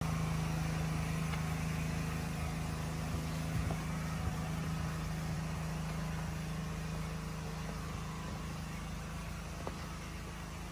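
A motor running steadily at one constant pitch, a low hum that fades a little over time, with a few faint knocks.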